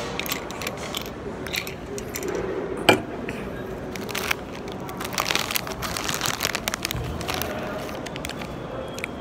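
A crinkly snack bag of cheddar rice crisps being handled and rummaged in, with crisps crunching, a sharp crack about three seconds in and a dense run of crackling about five seconds in.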